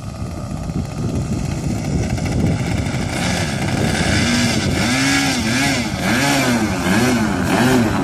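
O.S. 55AX two-stroke glow engine of a HobbyKing Katana model plane running on the ground, its pitch swelling up and down over and over in the second half. The engine is still being broken in.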